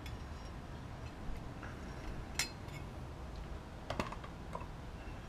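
Light clicks and metallic clinks from handling oil-soaked motorcycle clutch plates, with two sharper clicks about two and a half and four seconds in.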